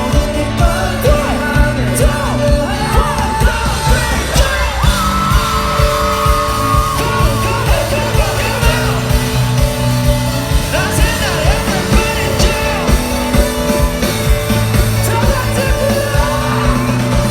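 Live rock band music with a steady drum beat and singing, and the crowd yelling along.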